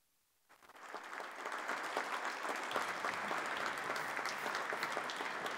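Applause, many hands clapping. It fades in after a brief silence about half a second in, then holds steady.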